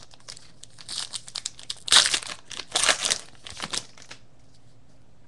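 A baseball card pack's wrapper crinkling and being torn open, in a run of rustling bursts from about one to four seconds in, loudest around two and three seconds.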